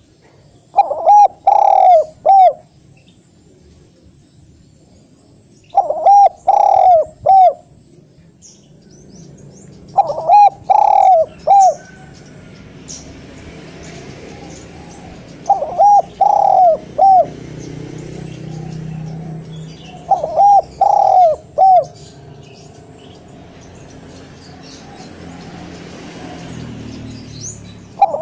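Spotted dove singing its loud cooing song over and over: each phrase is a quick run of about four coos lasting a second and a half, repeated every four to five seconds. A faint low rumble lies underneath in the middle stretch.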